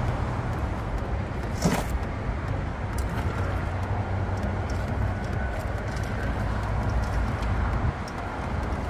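Steady low outdoor rumble with no clear source, and a single sharp click about two seconds in.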